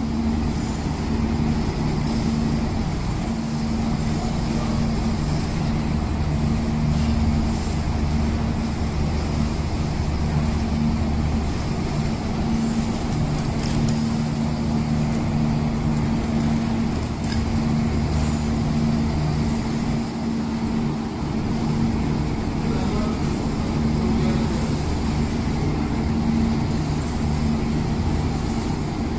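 Steady low machinery hum, unchanging throughout, with a few faint clicks over it.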